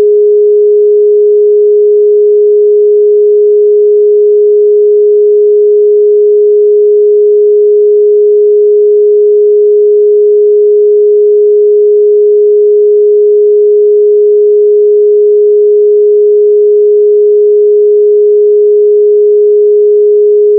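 Electronically generated pure sine tone held at one steady mid pitch, unchanging and with nothing else beneath it: a meditation tone meant for third-eye activation.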